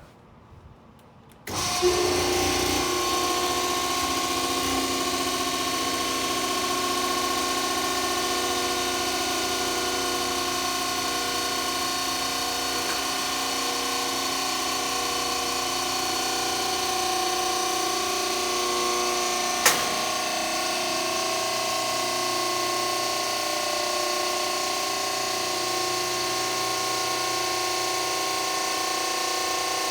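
PTR vertical baler's electric motor and hydraulic pump starting up about a second and a half in and running with a steady whine. A single sharp click comes about 20 seconds in.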